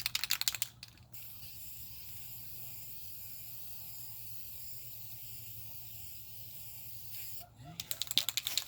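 Aerosol spray can of lacquer spraying with a steady hiss, broken by short bursts of rapid rattling at the start and again near the end.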